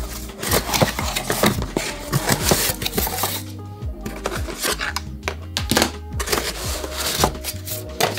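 Cardboard box being opened and unpacked by hand: crackling cardboard flaps and a run of sharp clicks and knocks as the contents are handled, over background music.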